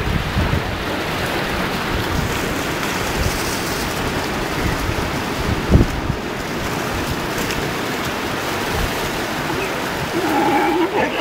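Shallow surf washing steadily over shoreline rocks, with one short thump about halfway. Near the end a Galápagos sea lion pup gives a wavering, bleat-like call.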